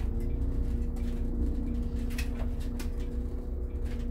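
Coach engine and drivetrain running at low speed during a tight turn, heard from the driver's seat: a steady low rumble with an even hum, and a few faint clicks.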